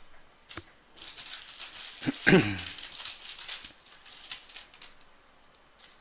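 Trading cards and their plastic sleeves being handled: soft crinkling rustles and small clicks, with a short murmur of a voice about two seconds in.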